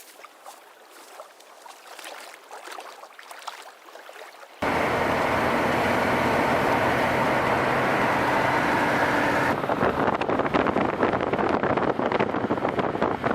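Faint lapping and light wind at a lake shore. About four and a half seconds in, it cuts abruptly to a loud, steady rushing noise with a low hum, which turns crackly and uneven a few seconds before the end.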